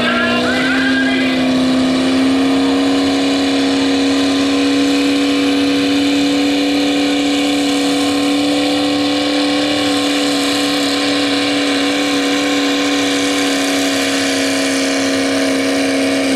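The engine of a super stock two-wheel-drive Chevrolet pulling truck is held at high revs under full load as it drags a weight-transfer sled. Its pitch rises slightly in the first second, then holds steady.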